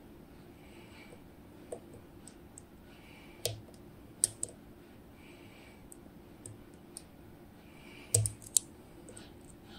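Lock pick and tension tool working the pins of a DOM IX Twido security cylinder: sparse, irregular sharp metal clicks, the loudest about three and a half seconds in, just after four seconds, and a close pair near the end.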